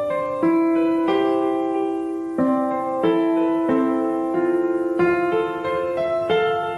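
Background piano music: a slow, gentle melody of ringing notes over held chords.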